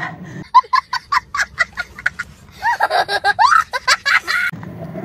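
A young child laughing hard in quick high-pitched bursts that rise into squealing whoops, then cutting off suddenly near the end.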